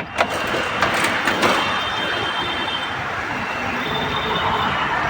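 Toyota Etios running with its AC switched on: a steady rushing of fan air and engine noise, with a few clicks in the first second or so. It stops abruptly near the end.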